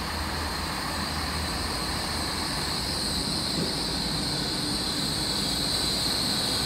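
GWR Class 800 Intercity Express Train coming into the platform and passing close by, a steady rumble growing louder. A high squeal from the wheels or brakes grows stronger as the coaches go by.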